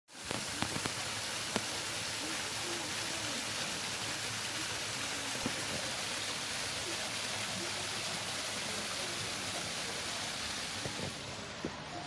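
Small ornamental cascading waterfall over stone ledges, water splashing steadily into a pond in an even rush. It grows slightly fainter and duller near the end.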